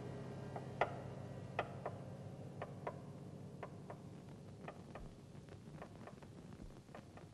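Irregular sharp ticks over a low steady hum. The ticks come closer together and fainter as the sound slowly fades out.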